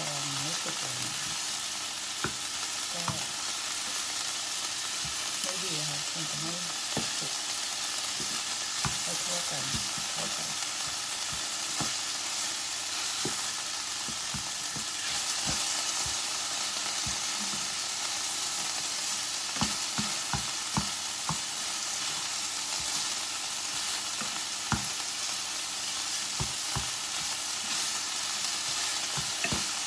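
Minced beef sauce sizzling in a pan, a steady hiss, with scattered clicks and taps of a utensil.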